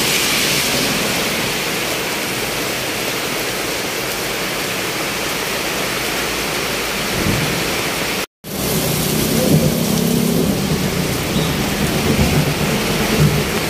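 Heavy rain pouring down in a steady hiss. After a brief cut about eight seconds in, a lower, uneven rumble joins it from vehicles driving past on the wet road.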